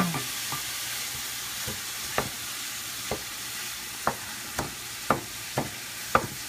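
Corned beef and chopped vegetables sizzling as they stir-fry in a stainless steel pan. From about two seconds in, a wooden spatula knocks and scrapes against the pan about twice a second.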